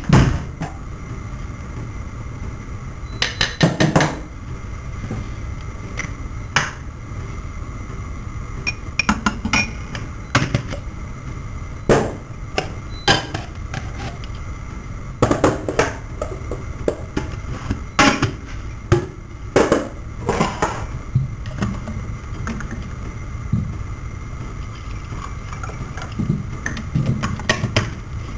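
Kitchen handling noises: dishes, glassware and utensils clinking and knocking at irregular intervals, sometimes in quick clusters, over a steady low hum.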